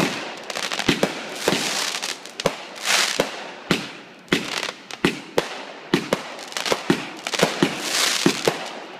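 Aerial fireworks going off in quick succession: many sharp bangs at irregular spacing, with swells of hissing, crackling sparks between them.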